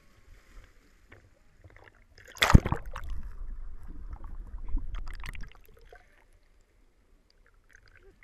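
A person sliding off a concrete water chute plunges into a river pool with a loud splash about two and a half seconds in, then the camera goes underwater and picks up low, muffled water noise for about three seconds before it fades to near quiet.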